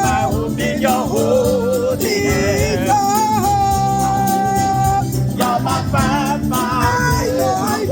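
Gospel worship singing with keyboard accompaniment, sustained chords under the voices, with one long held sung note about three seconds in.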